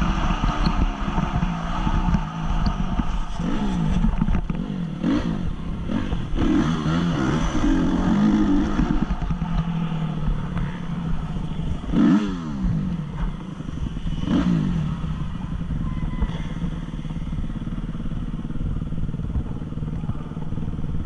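Honda CRF 250 motocross bike's single-cylinder four-stroke engine running hard, heard from the rider's helmet camera. Its pitch climbs and drops back several times as the throttle is opened and closed, over a constant low rumble of wind on the microphone.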